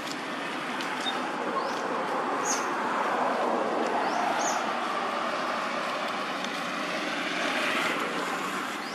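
Steady rushing outdoor noise that swells through the middle and eases off near the end, with a few faint short high chirps.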